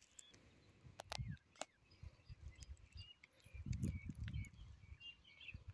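Faint outdoor ambience: small birds chirping now and then, a few sharp clicks, and low rumbles of wind on the microphone.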